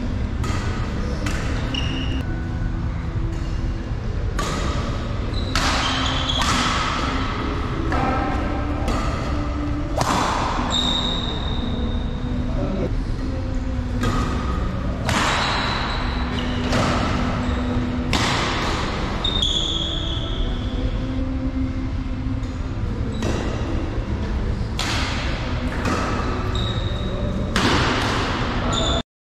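Badminton doubles rally in an echoing sports hall: sharp racket strikes on the shuttlecock about once a second, short high squeaks of court shoes, and voices in the background. The sound cuts off abruptly near the end.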